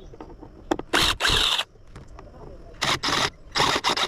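Power drill backing screws out of an old radio's cabinet in short bursts: three pairs of quick runs about a second and a half apart.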